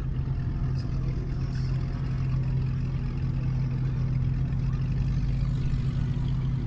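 Boat engine running steadily at low speed, an even low hum.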